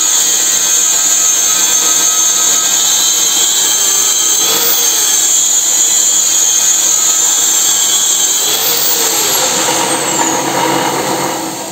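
Angle grinder with an abrasive disc running against a steel pipe spinning on a homemade lathe, grinding the rust off it, with a steady high whine. After about nine seconds the grinder is switched off and its whine falls away.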